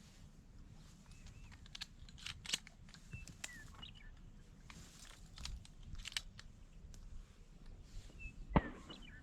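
Scattered small ticks and clicks with a sharper knock about eight and a half seconds in, over a low wind rumble; a few faint short bird chirps come through now and then.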